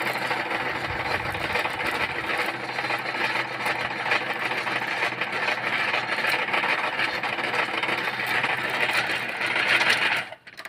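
A workshop power tool or welding machine running steadily, making a continuous rough hiss over a low hum, then stopping suddenly about ten seconds in.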